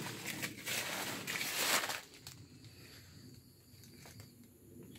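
Dry leaves and foliage rustling and crackling as a person moves among cacao trees, loud for about two seconds and then stopping. After that only faint, steady, high-pitched insect calls remain.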